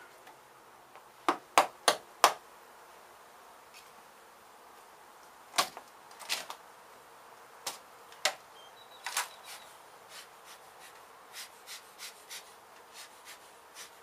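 Sharp knocks and taps from hand work at a wooden wall. A quick run of four loud knocks comes a little over a second in, then scattered knocks in the middle, then lighter, evenly spaced ticks toward the end.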